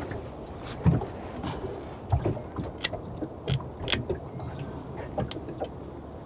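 Scattered knocks and clicks of handling on a small wooden fishing boat, about one a second, over a low steady background noise.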